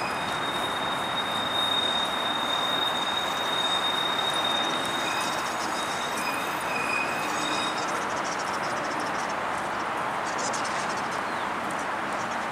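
CLRV streetcar rolling around a curve of loop track, its steel wheels squealing on the rails in a high steady tone for the first seven seconds or so. A second, lower squeal joins briefly in the middle.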